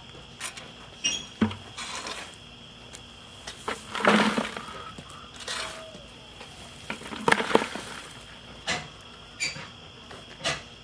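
Wood chips being scooped and dropped into a plastic bucket: crunching, rustling scrapes in two louder bursts about four and seven seconds in, with lighter clicks and scuffs of chips and footsteps between.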